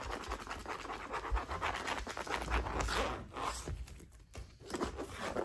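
Dense scratching and scrabbling of cats' paws and claws on tatami matting as they pounce at a wand toy, many rough strokes close together, stopping suddenly near the end.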